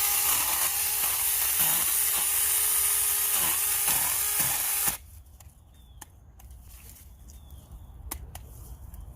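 A Saker 20-volt battery mini chainsaw running, its electric motor whine dipping sharply several times as the chain bogs down in the cut. It stops suddenly about five seconds in, followed by a few light clicks.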